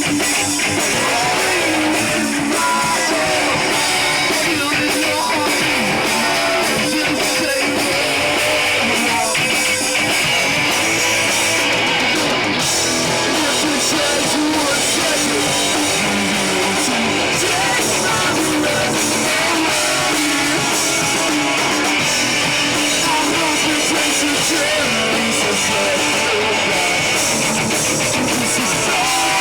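Live rock band playing loud, distorted electric guitar over drums, a dense and unbroken wall of sound from an amateur concert recording.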